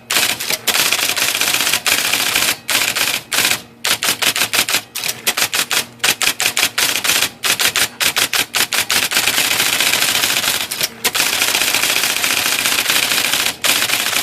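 IBM Selectric II electric typewriter typing a fast run of keystrokes, the type ball striking the platen in rapid clattering strings with brief pauses between them. The machine is being test-typed for a misselection fault that makes it print partial characters.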